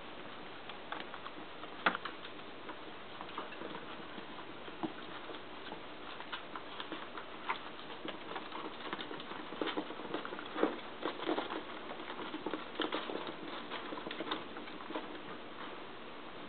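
Yorkshire terrier puppies scampering and tussling in a wire pen: irregular light patter and clicks of paws and claws with small knocks against the pen and a plastic basket, busier in the second half.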